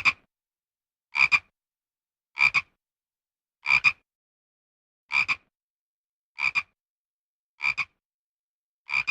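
Frog croaking: a short double croak repeated about every 1.3 seconds, eight times in a row.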